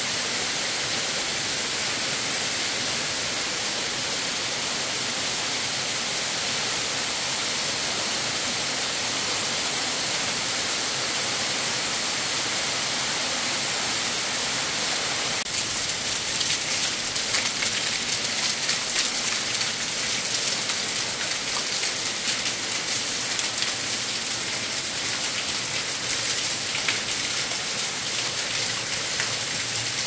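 Water from a small waterfall falling down a rock face and spattering onto stones: a steady hiss that turns louder and more crackling about halfway through, with many small splashes.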